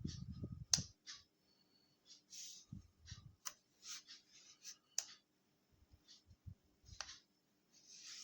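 Scattered small clicks, taps and brief rustles from something being handled, with a low bump at the very start; no motor is running.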